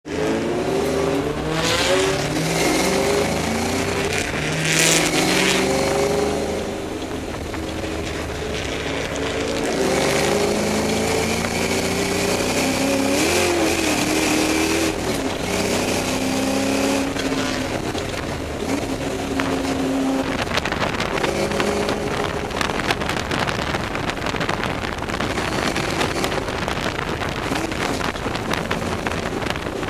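Ford Mustang race car's engine heard from inside the cabin, climbing in pitch through the gears and dropping at each upshift, then easing off. In the latter part it sits under a steady hiss of wind and tyres on a wet track.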